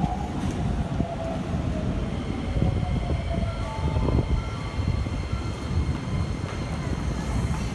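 Keikyu 1000 series electric train pulling into a station and braking: a low rumble of wheels on rail with a whine that falls in pitch over the first few seconds as it slows, the sound of its Toyo IGBT VVVF inverter and traction motors.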